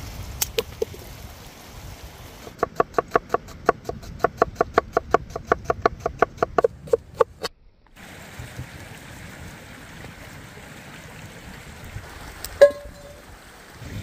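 A knife chopping an onion on a wooden cutting board: a quick run of about five cuts a second for around four and a half seconds. Then a stream runs steadily, and a single sharp metallic clank rings out near the end.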